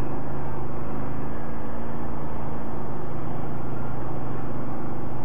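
ATV engine idling steadily, a constant low hum with no revving.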